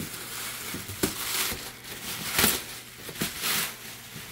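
Plastic bag crinkling and styrofoam packing rubbing as a countertop oven is lifted from its box, in about three rustling bursts with a sharp click near the first.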